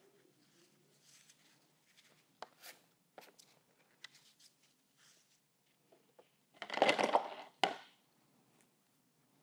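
Faint scratches and taps, then a brief loud crinkling rustle about seven seconds in, ended by a sharp click.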